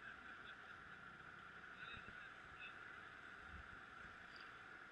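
Near silence: a faint steady hiss, with a few faint short high-pitched calls about two seconds in and once more near the end.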